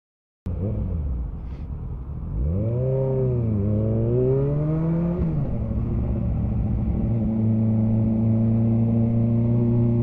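Motorcycle engine heard from the rider's shoulder, starting suddenly about half a second in. The revs rise and fall twice with a drop at a gear change near the middle, then hold steady as the bike cruises.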